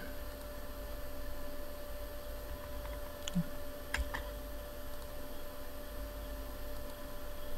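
Steady low electrical hum of a desk-microphone recording with a constant tone in it, and a few short computer mouse clicks about three and four seconds in.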